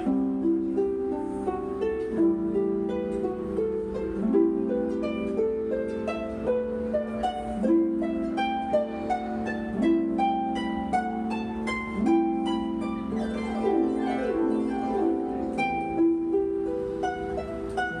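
Concert pedal harp played solo: a flowing run of plucked notes and chords, each note ringing on under the next.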